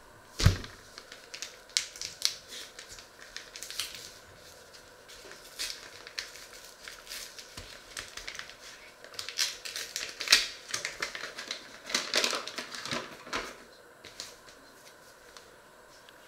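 Paper packet being handled, crinkled and opened by hand, a run of irregular crackling rustles that is densest in the second half, with one sharp thump about half a second in.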